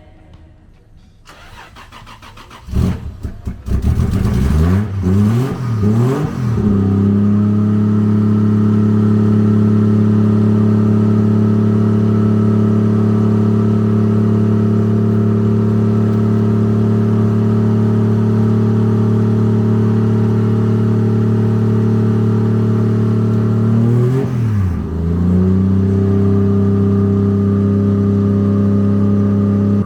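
Toyota 1JZ inline-six engine coming in loud about three seconds in, its revs rising and falling for a few seconds before it settles into a steady held note. About twenty-four seconds in the revs dip briefly and climb back to the same note.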